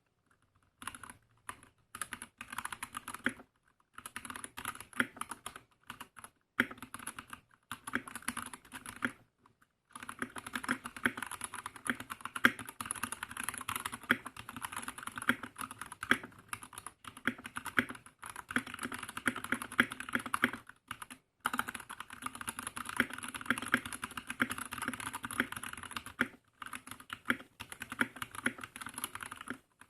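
Typing on a Gamakay TK68 mechanical keyboard fitted with Gateron Silver linear switches and ASA-profile keycaps. The keystrokes start out scattered with short pauses, then settle into fast, continuous typing about ten seconds in.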